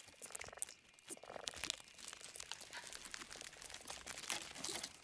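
Creature sound effects for a giant centipede in a horror film: faint, irregular clicking and crackling.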